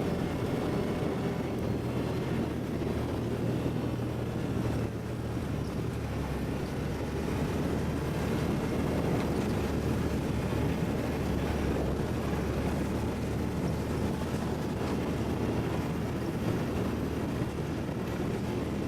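ATV engine running steadily under way, with wind noise on the microphone; the engine note drops a little about five seconds in.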